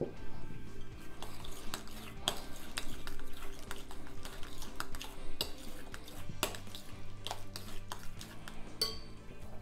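Metal spoon stirring a thick yogurt and herb sauce in a glass bowl, with repeated scrapes and clicks of the spoon against the glass and one ringing clink near the end. Soft background music plays underneath.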